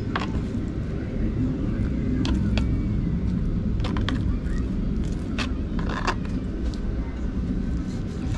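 Kitchen knife slicing mangrove jack fillets on a plastic cutting board, with several short knocks and clicks of the blade against the board, over a steady low rumble.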